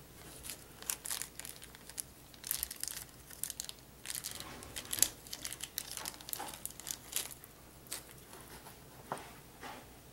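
Plastic packaging crinkling and rustling in irregular spurts, with light clicks and knocks, as it is handled to get at the screws supplied with a computer power supply.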